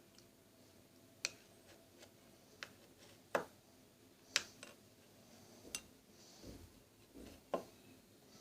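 Irregular light taps and clicks of a utensil against a container, about six of them, with a couple of soft low thumps in between.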